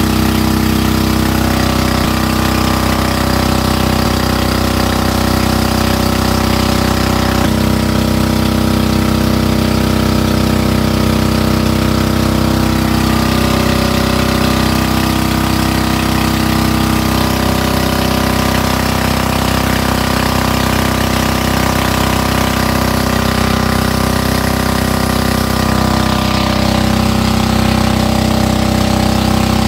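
Small boat's engine running loud and steady at a constant speed.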